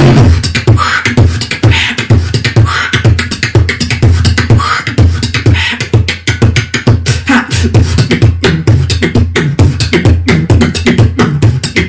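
Human beatboxing: a fast, dense beat of mouth-made kick, snare and hi-hat strokes over a continuous low bass hum, with a few short pitched vocal sweeps woven in.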